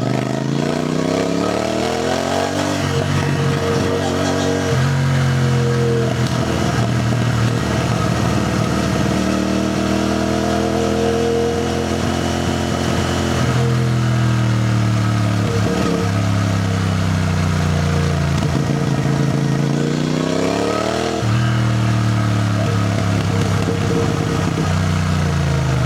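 CFMoto 450NK's parallel-twin engine pulling through the gears, with the pitch rising and dropping at upshifts about 3 and 5 seconds in. It then cruises at steady revs, rises again and shifts up about 21 seconds in.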